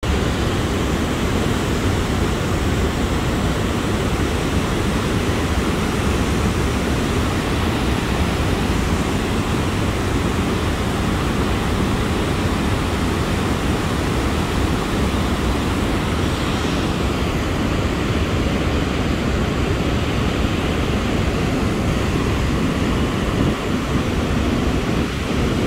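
Steady rush of river water spilling over a low-head dam and churning below it.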